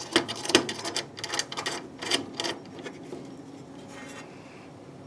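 Irregular metal clicks and rattles from a nut and washer being spun by hand onto a bed-strip bolt under a wooden pickup bed, dense for the first couple of seconds and then fading to a quieter steady background.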